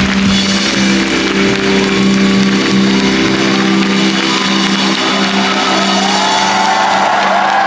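Live band music with a sustained held chord ringing on; the low bass drops out about halfway through.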